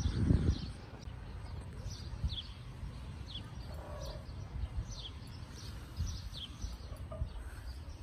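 Wind buffeting the microphone, with a louder gust right at the start. Over it come short, high, falling chirps about once a second.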